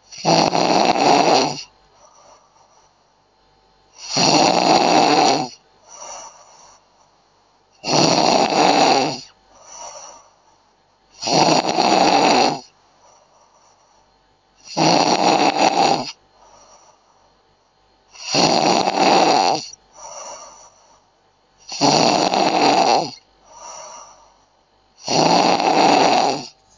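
A person snoring in a slow, even rhythm: eight loud snores, one about every three and a half seconds, each followed by a fainter, shorter snore.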